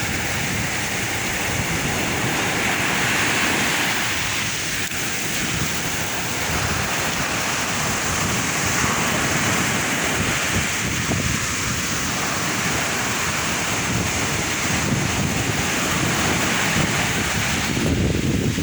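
Sea waves breaking and washing onto the shore in a continuous rush that swells and eases, with wind buffeting the microphone.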